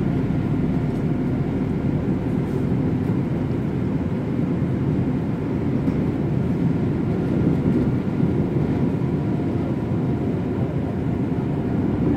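Seoul Line 1 electric commuter train running at speed, heard from inside the carriage: a steady low rumble of wheels on rails, with a few faint steady tones above it.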